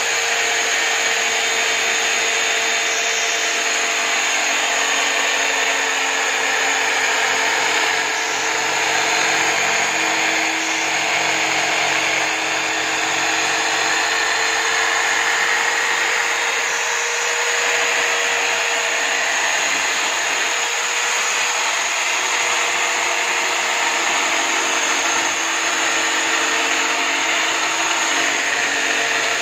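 Electric drill rigged in a drill stand as a homemade drum sander, running steadily while the edge of a board is sanded on the spinning sanding drum: a steady motor whine under a dense, even rasp of sanding.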